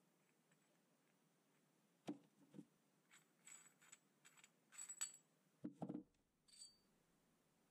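Faint metal-on-metal clinks and knocks from a steel ER32 collet chuck, its nut and a C-spanner being handled, with the nut turned and taken off. A few knocks come about two seconds in, a run of bright clinks follows, and a pair of knocks comes near six seconds.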